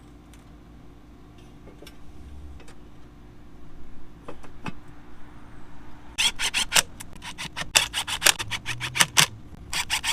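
Hand ratchet wrench clicking in quick runs as the Harley's primary cover bolts are run in, starting about six seconds in after a few light metallic clicks.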